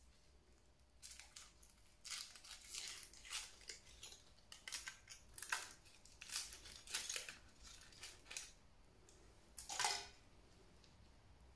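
Foil wrapper crinkling and tearing as it is peeled off a Kinder Surprise chocolate egg, in irregular bursts, with a louder crinkle near the end.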